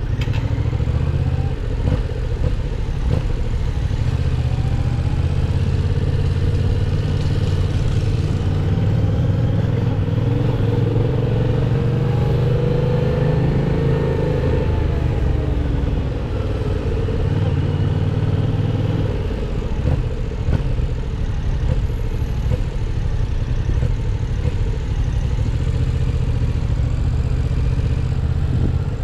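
Yamaha MT-07's parallel-twin engine running as the motorcycle is ridden, its note climbing and then falling in pitch about midway through.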